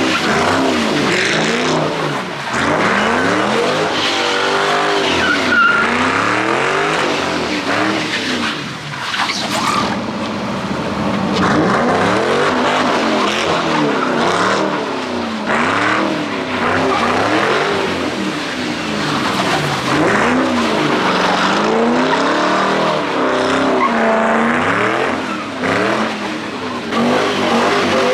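Car engine revving up and down over and over while its tyres spin and skid on the wet pavement, as in a car doing donuts or a burnout.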